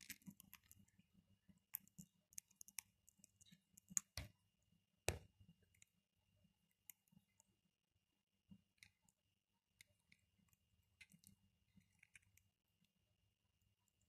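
Young Alexandrine parakeet eating puffed rice from a bowl: faint, scattered clicks and crunches of its beak on the food and the bowl, with two sharper knocks about four and five seconds in.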